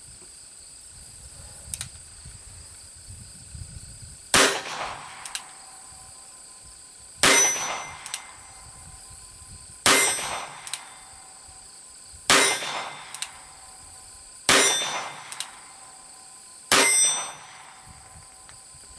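Six sharp .22 rimfire shots from a Ruger Single Six single-action revolver, spaced about two and a half seconds apart, each with a short ring after it. A light click follows each shot, the hammer being thumb-cocked for the next round.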